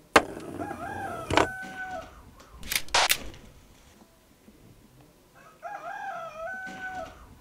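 A rooster crowing twice, each crow rising and then ending in a long held note, several seconds apart. A few sharp knocks or clicks are heard in the first three seconds, the loudest just at the start.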